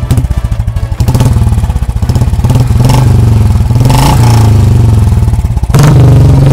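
Royal Enfield Bullet's single-cylinder engine starting and running with a rapid, even exhaust beat. Near the end the sound grows louder and steadier.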